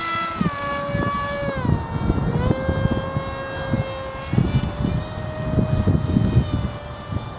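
Electric motor and pusher propeller of a Bixler 1 RC plane whining in flight. The pitch steps down twice in the first couple of seconds, then holds steady. Low, gusty noise runs underneath.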